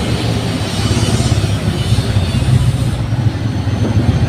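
A loud, steady, rough motor rumble, noise from work going on at a neighbour's. A faint high whine joins about three seconds in.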